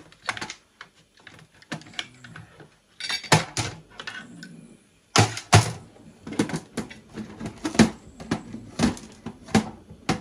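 Irregular metallic clicks, clanks and knocks of an Elna sewing machine's housing and inner parts being wiggled loose and handled during dismantling, with a few loud clanks between quieter stretches.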